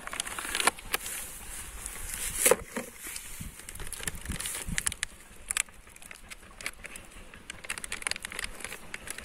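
Paper carton and plastic sachet crinkling and rustling as they are handled and opened by hand: an irregular run of small crackles and clicks, the loudest about two and a half seconds in.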